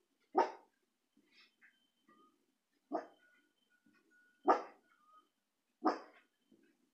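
A dog barking, four single sharp barks spaced about one and a half seconds apart.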